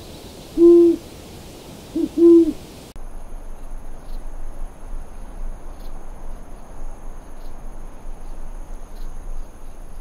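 Owl hooting, two low hoots about a second and a half apart, the second with a short note just before it. A few seconds in the hoots stop and a quieter outdoor ambience with a faint thin high whine takes over.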